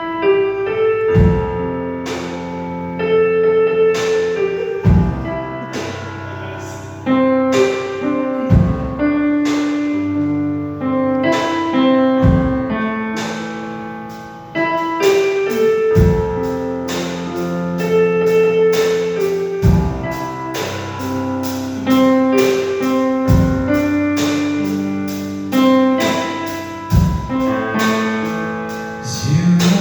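Keyboard playing an instrumental passage of slow, held chords, with a deep bass note struck every three to four seconds as the chords change.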